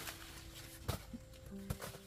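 Soft background music of held notes, the tune moving to a new note partway through. A few sharp knocks sound over it, about a second in and near the end.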